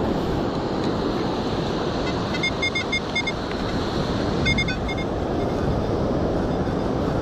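Steady wind and surf noise on the beach, with a metal detector's target signal: a run of rapid short high beeps about two seconds in and a shorter run about four and a half seconds in.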